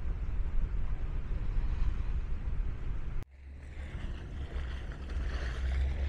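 Low rumble of a boat's engines under wind noise on the microphone, breaking off abruptly about three seconds in and then coming back.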